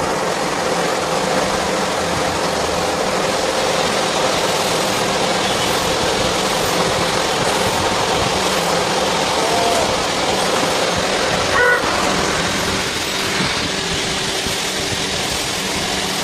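CNC lathe face-grooving a spinning workpiece under flood coolant: a steady hiss of coolant spray and cutting over the machine's running hum. A brief pitched tone sounds about twelve seconds in.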